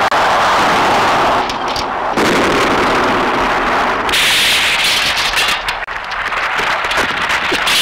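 Battle sound effects on an old film soundtrack: a continuous din of gunfire and explosions, with a run of rapid sharp shots in the second half.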